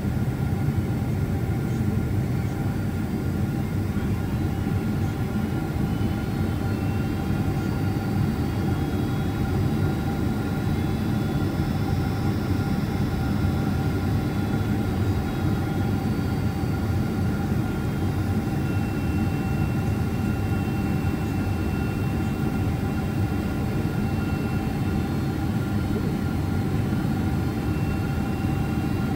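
Steady cabin noise inside a Boeing 767-400ER on approach: a dense jet-engine and airflow rumble, with a few steady whining tones above it.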